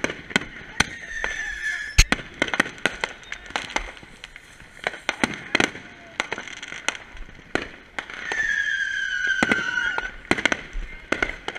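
Fireworks and firecrackers going off all around, with irregular sharp bangs and pops; the loudest bang comes about two seconds in. A high falling whistle sounds twice over them, briefly near the start and longer about eight seconds in.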